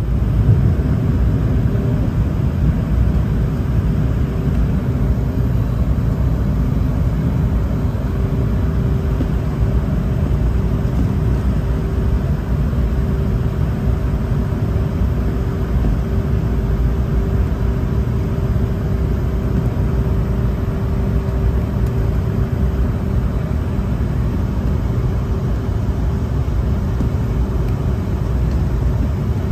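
Steady drone of a jet airliner's engines and rushing air heard inside the passenger cabin in flight, with a steady hum running through it.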